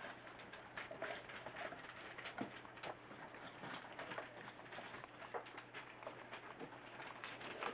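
Newfoundland puppies at a food bowl: quick small clicks and crackles of kibble being crunched and newspaper rustling under their paws, with small puppy whimpers.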